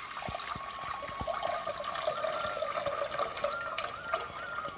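Tamarind water poured in a steady stream from a brass pot into a metal pot, splashing as it fills, with a sustained, slightly wavering ringing tone throughout.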